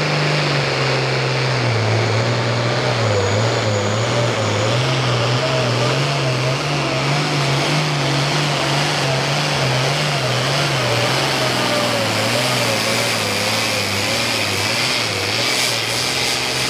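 International Super Pro Farm pulling tractor's diesel engine running hard at full throttle as it pulls the sled. It is loud and continuous, its pitch wavering up and down all through the run.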